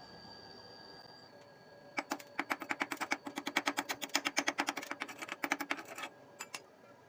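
Rapid metallic tapping, about eight quick strikes a second for some four seconds, then two more taps.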